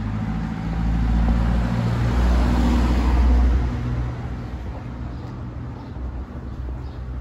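A motor vehicle passing close by: a low engine hum and tyre noise swell to a peak about three seconds in, then fade away.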